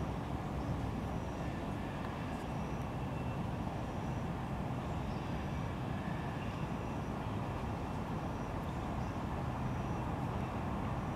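Steady low rumble of distant city traffic, with faint short high chirps now and then.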